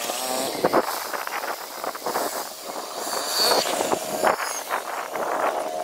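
Fast-forwarded outdoor recording of a diesel-hauled passenger train approaching along the line, played at six times speed so the sounds come out high-pitched, jumbled and full of quick chirps and clicks.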